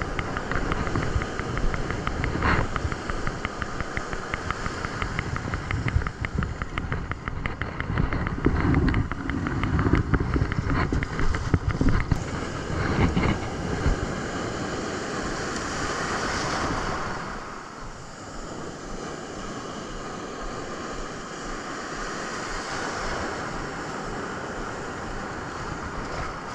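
Wind buffeting the microphone over the steady wash of surf, gusting hardest in the middle and easing off about two-thirds of the way through.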